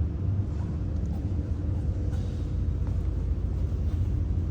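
Steady low rumble of background noise, with a couple of faint clicks.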